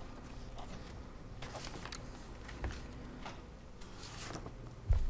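Papers rustling and small scattered clicks and knocks on a table, with a sharp low thump near the end.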